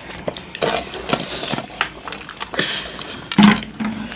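Eating sounds: chewing and food being handled on a plate, with scattered light clicks and clinks, and a short voiced sound a little past three seconds in.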